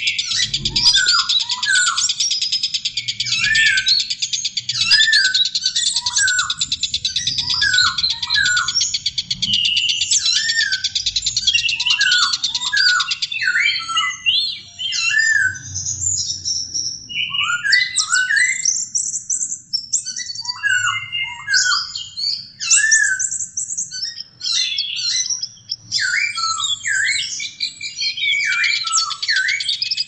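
Several songbirds singing at once, a mixed recording of the kind used to tutor caged songbirds. A dense layer of quick high chirps and trills runs over a short, repeated lower note about once a second; about halfway through, the dense chatter breaks up into separate phrases with short gaps between them.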